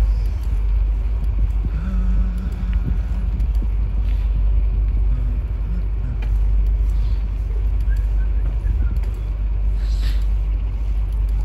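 Steady low rumble of wind and road noise on the microphone of a moving bicycle.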